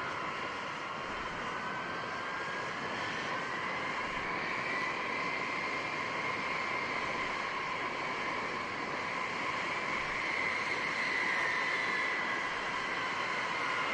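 B-52 bomber's eight turbofan jet engines running, a steady rush with whining tones that slowly drift up and down in pitch.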